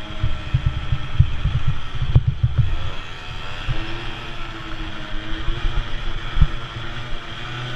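Small 50–70cc race engine running hard, its pitch falling and rising again as it goes through the turns. Heavy irregular thumping from wind buffeting and track bumps on the microphone.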